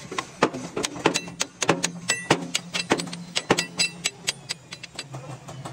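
Metal clinking and tapping in a truck-building workshop: quick, irregular sharp strikes, several a second, some ringing briefly, over a steady low hum.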